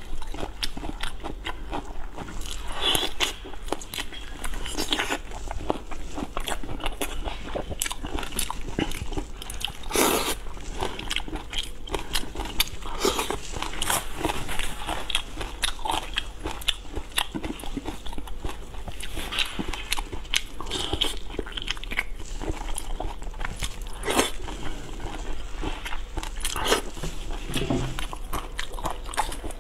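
Close-miked eating of seafood: biting and chewing with many short, sharp clicks and snaps coming irregularly throughout.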